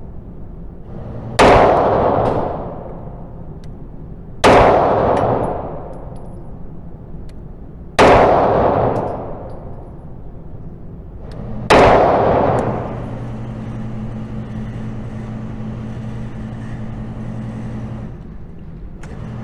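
Pistol fired four single shots, spaced about three to four seconds apart, each followed by a long ringing decay. A steady low hum comes in around the fourth shot.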